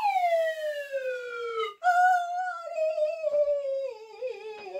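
A long falling whistle-like glide, then after a brief break a long wavering cry sinking slowly in pitch: a storyteller's sound effect for a character being flung far away.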